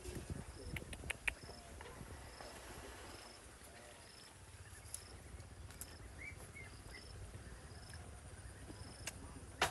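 An insect chirping: a short, high, even chirp repeated a little more than once a second, over a low background rumble. A few sharp clicks come and go, the loudest near the end.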